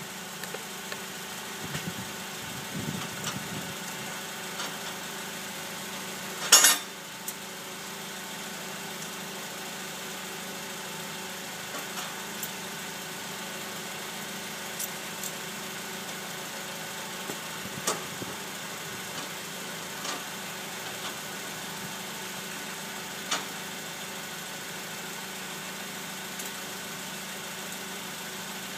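Car engine idling steadily, with a few sharp clanks as the car is lowered, the loudest about six and a half seconds in.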